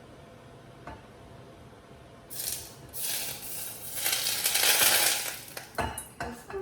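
Smoking-hot oil poured over grated ginger, garlic, shallot and spring onions, sizzling and crackling. It starts about two seconds in and comes in loud surges, loudest just past the middle.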